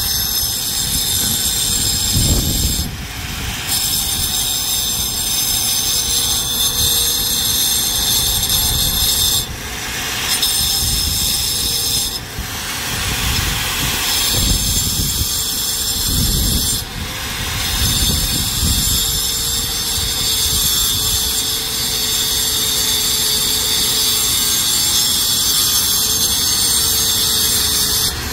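Electric angle grinder grinding the underside of a concrete overhead surface: a steady high whine and grinding noise, its pitch wavering as the disc is pressed on, breaking off briefly about four times as it is eased off the surface.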